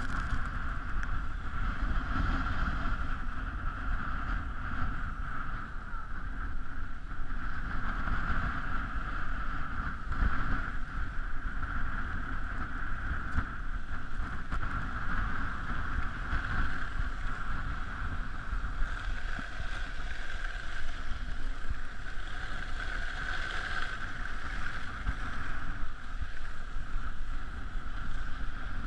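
Wind rumbling over a moving camera's microphone during a slow downhill ski run, with a steady hiss of skis sliding on snow that swells and fades a little.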